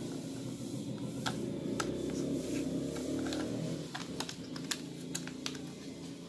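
Scissors snipping through the soft wall of a cup-noodle cup: a series of sharp clicks. A low background hum runs under the first part and drops away about four seconds in.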